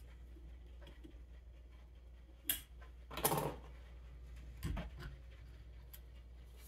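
Quiet handling of small parts as the choke butterfly is worked into an 8N Ford tractor carburetor: a sharp click about two and a half seconds in, a brief scrape, then a knock.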